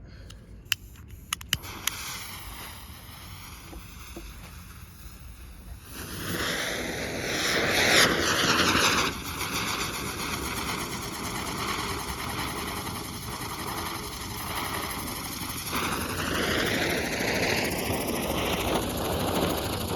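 A few sharp clicks, then a novelty spinner firework's fuse catching and the piece hissing steadily as it throws sparks. The hiss swells strongly about six seconds in and carries on with a wavering, whirling quality, growing louder again near the end.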